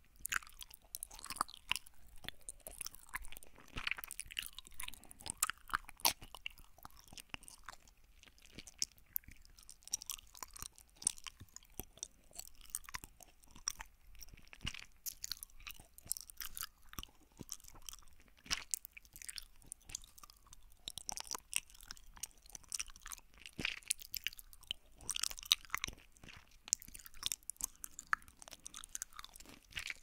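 Close-up chewing of gummy jelly candies right at a binaural ear-shaped microphone: wet, sticky mouth sounds with many small irregular clicks and smacks.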